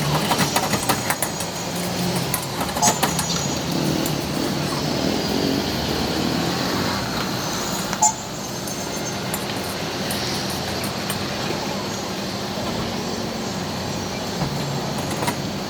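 Busy street background: a steady hum of traffic, with a run of sharp clicks and clatter in the first second, more around three seconds in, and a single sharp knock about eight seconds in.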